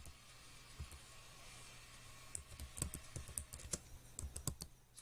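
Typing on a computer keyboard: irregular key clicks, a few at first, then a quicker run of keystrokes from about halfway through, over a faint steady low hum.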